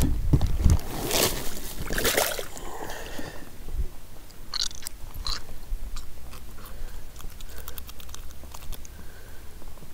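Close handling noise from a just-caught small roach and its lure: a few loud rubbing scrapes in the first few seconds, then sharp clicks and small faint ticks.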